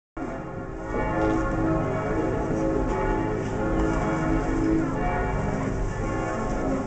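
Church bells ringing, several bells sounding together in a continuous, overlapping peal that grows louder about a second in.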